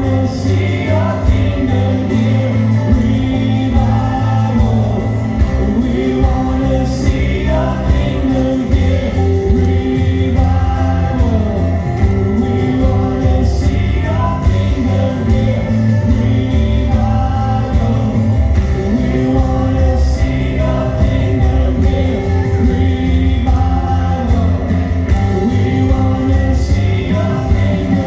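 Christian worship music: a band holding slow sustained chords over a steady bass, with singing voices.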